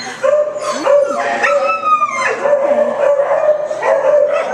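Shelter dogs in kennels howling and barking: a long held howl with short barks over it, and a falling yelp about two seconds in.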